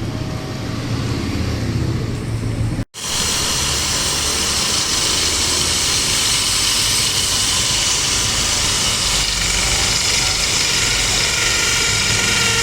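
Power-tool motor running steadily with a high whine. It cuts out for an instant about three seconds in and comes back brighter.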